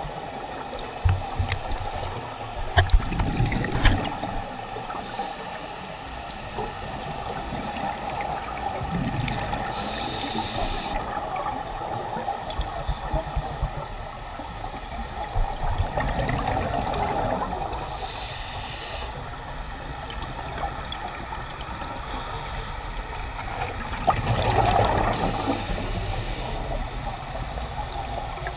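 Scuba diver breathing underwater through a regulator: a hiss on each inhalation and a bubbling rush on each exhalation, one breath every several seconds, over a steady hum.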